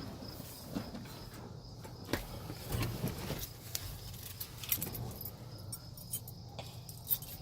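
Keys jangling, with scattered light clicks and knocks.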